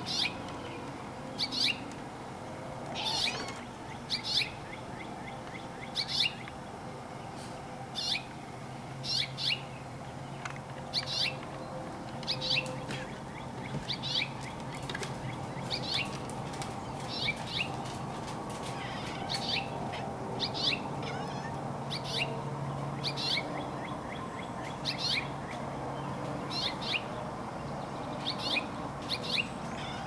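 A bird chirping over and over, short high calls about once every second or so, over a faint steady hum.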